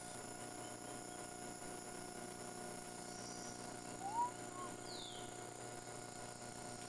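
Forest bird calls: a high whistle sliding downward about five seconds in, and a short rising two-note call just before it, the loudest sound, over a faint steady electrical hum.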